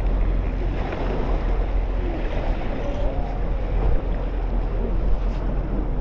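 Wind buffeting a GoPro Hero10 camera's microphone as a steady low rumble, over the hiss of ocean surf.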